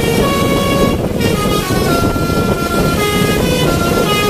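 Telolet Basuri musical horn on a bus playing a tune: held notes that step up and down in pitch, with a short break about a second in, over a low rumble.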